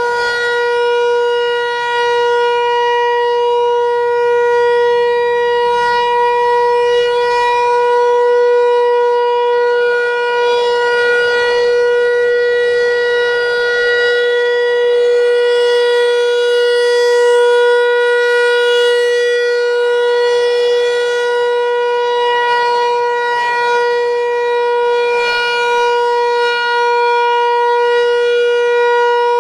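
Federal Signal Equinox electronic outdoor warning siren sounding its Alert signal: one loud, steady tone that holds the same pitch without rising or falling.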